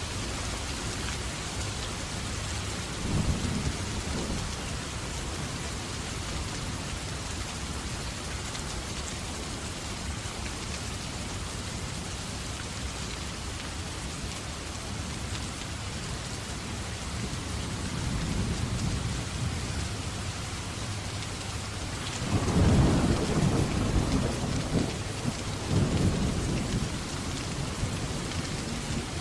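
Steady rain falling, with thunder rumbling: a short rumble a few seconds in, and a louder, longer roll of thunder in the last third.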